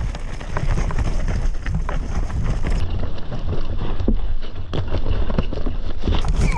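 Mountain bike descending a rough trail, heard through an action camera's microphone: steady wind buffeting with rapid clatter and knocks from the bike as it rides over the uneven ground.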